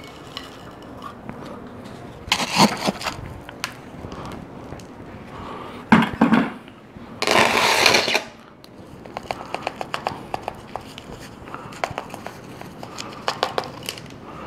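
Bonsai substrate being scooped from a bucket and poured into a pot with a plastic soil scoop: scraping and rustling in short bursts, one longer pour of loose granules lasting about a second around the middle, then many small clicks of grains and lumps dropping as the soil is worked in by hand.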